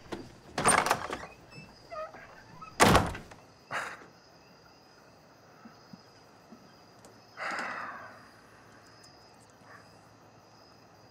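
A wooden door is opened and pulled shut. It closes with a solid thunk about three seconds in and a lighter knock just after. A brief soft noise follows later, over a faint steady high chirring.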